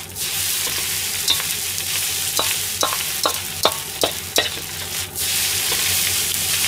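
Fried rice sizzling in a wok while a metal wok ladle stirs and turns it, the ladle clinking and scraping against the wok in a quick run of strokes. The sizzle dips briefly about five seconds in.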